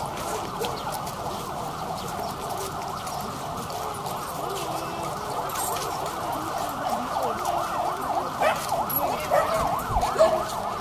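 A siren wailing in quick rising-and-falling sweeps, growing louder near the end.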